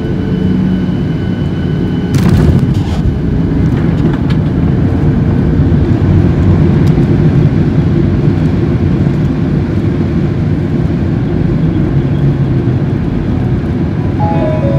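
Cabin noise of a Boeing 737-700 rolling along the runway: a loud, steady low rumble of engines and wheels, with a brief rattle about two seconds in. Music starts near the end.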